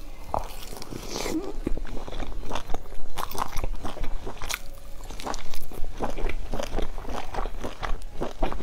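A person biting into and chewing a sauce-coated piece of food, with many short, irregular clicks of chewing.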